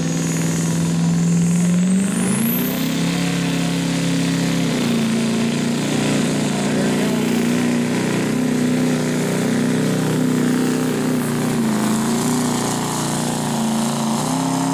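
Chevrolet pickup's Duramax V8 turbodiesel pulling a sled at full throttle. About two seconds in the revs climb while a high whistle sweeps upward, then the engine holds at high revs, wavering slightly under load, for the rest of the pull.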